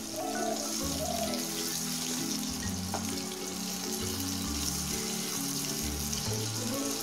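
Tangra fish sizzling as they fry lightly in hot mustard oil: a steady crackling hiss. Background music with a repeating bass line plays over it.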